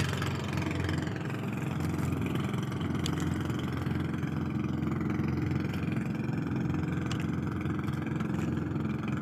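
Small engine of a motorized outrigger fishing boat running steadily at a constant speed.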